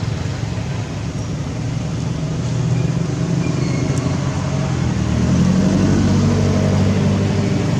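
A motor vehicle engine running with a steady low rumble, growing a little louder and higher about five seconds in.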